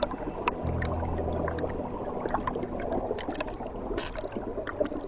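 Mountain stream water splashing and gurgling over rocks, with many small drips and splashes.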